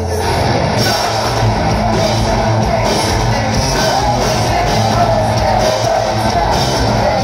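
Live rock band playing loud: electric guitars, bass and a drum kit in a dense, continuous mix, heard from among the audience.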